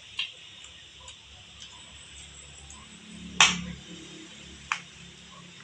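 A few sharp clicks of metal forks against a plate of pineapple chunks. The loudest is about three and a half seconds in, over a faint steady hiss.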